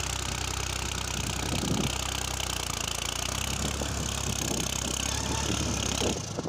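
New Holland 3630 tractor's three-cylinder diesel engine running steadily as the tractor climbs a steep dirt mound. Near the end the engine sound breaks off abruptly.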